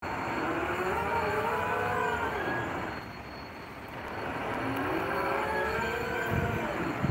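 The steel launching cradle under a tugboat grinds down the slipway rails, giving two long wavering metallic squeals that rise and then fall in pitch over a low rumble, with a few low knocks near the end.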